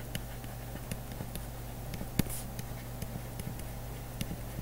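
Faint scattered taps and clicks of a writing stylus as words are hand-written, over a steady low hum; one sharper click about two seconds in.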